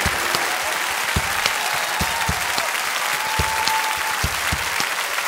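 A crowd of guests applauding, steady clapping throughout.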